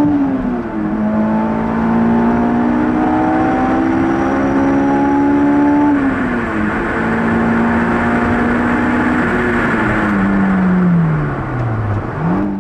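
Honda S2000's four-cylinder engine at full throttle, heard inside the cabin through a Tanabe Medalion Touring exhaust and sport cat. The revs climb and drop with an upshift just after the start and another about six seconds in, then climb again. Near the end the revs fall away steadily as it lifts off, with a short rev blip at the very end.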